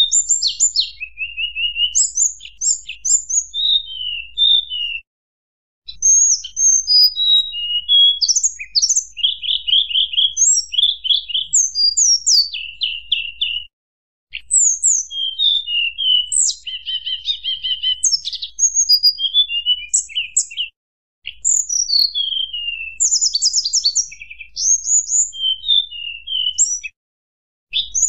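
Tledekan gunung singing in a fluty, whistling style: quick runs of high whistled notes, slurred chirps and rapid trills in varied phrases. The song breaks off into short silences about every seven seconds.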